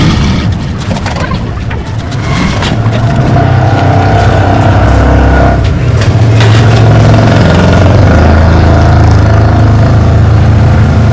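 A motor engine running loud and steady, picking up about two seconds in and then holding.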